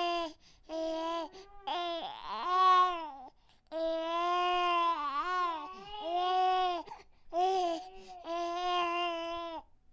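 A baby crying: a string of drawn-out wails, mostly held at one pitch with a few bending up and down, broken by short pauses for breath.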